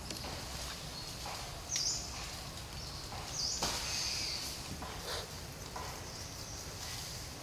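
Forest ambience: insects buzzing in short high-pitched bursts that come and go, over a steady low rumble, with a few faint rustles and snaps in the undergrowth.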